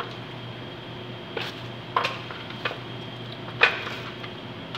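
Kitchen knife tapping and knocking on a cutting board as celery stalks are cut and moved about: a few sharp, irregular knocks, the loudest about three and a half seconds in, over a steady low hum.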